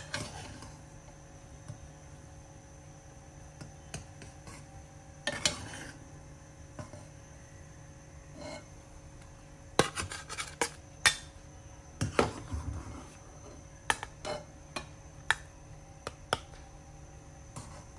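A metal spatula scraping and clinking against a metal kadhai as cooked egg is lifted out of hot water. The clinks and scrapes are scattered, few at first and more frequent in the second half.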